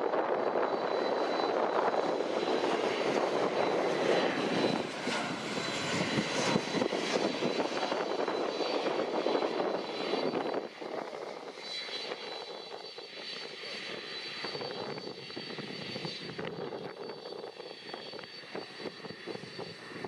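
Boeing 737-800's CFM56-7B turbofan engines on approach and landing: a loud jet rumble with a high steady whine over it. About ten seconds in the level drops sharply and the engines go on more quietly, the whine still there.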